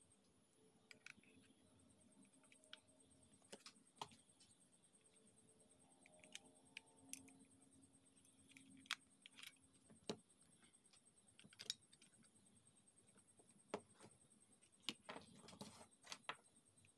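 Faint, scattered clicks and taps of a plastic TV remote being handled: buttons pressed, the battery cover taken off and AA batteries pulled out. A quick cluster of clicks comes near the end.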